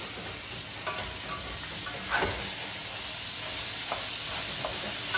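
Meat sizzling in a frying pan over a gas burner: a steady frying hiss, with a few short clicks and scrapes of a utensil working the meat in the pan.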